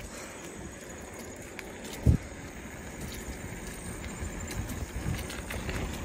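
Bicycle riding fast along a paved trail: a steady rumble of tyres and wind on the microphone, with one loud thump about two seconds in.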